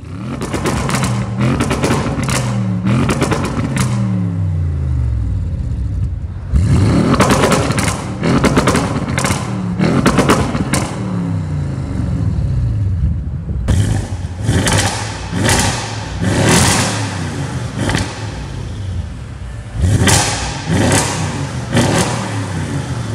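Audi RS6 C7's twin-turbo V8, tuned to about 715 hp, with catless downpipes on the stock exhaust, revving from stationary. The revs drop away over the first few seconds, then come two sets of sharp rev blips with cracks and pops on the overrun.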